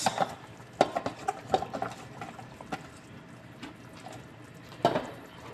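Pork pochero broth simmering in an aluminium pot, broken by scattered light clicks and knocks from handling, with a sharper knock near the end.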